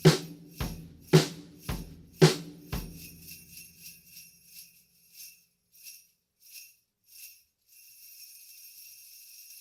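Small brass sleigh bell hand rattle played in a steady beat, a stroke a little under every 0.6 seconds. For the first three seconds each jingle lands with a low thump. The strokes then go light and fade, and near the end the bells are shaken continuously.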